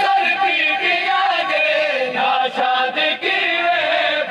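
Men chanting a noha, a Shia mourning lament, with several voices sustaining the melody together.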